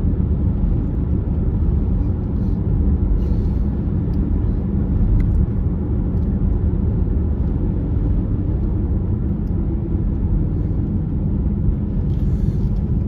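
Steady low rumble of a car driving in strong wind, with road and wind noise.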